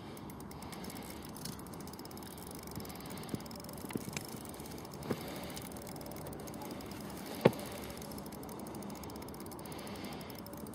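Spinning reel ticking and whirring under load while a hooked large wels catfish is played on a hard-bent rod, with a few sharp clicks, the loudest about seven and a half seconds in.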